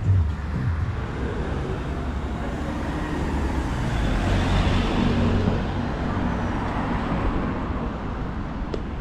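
Road traffic: a steady low rumble, with a vehicle passing close by and growing loudest about four to five seconds in before fading again.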